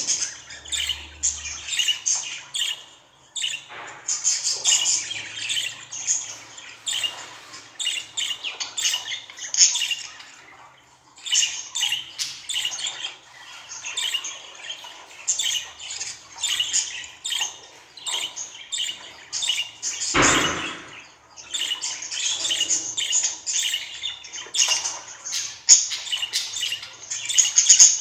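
Budgerigars chattering: quick runs of short, high chirps and squawks with brief pauses between bursts. About two-thirds of the way through there is a single thump.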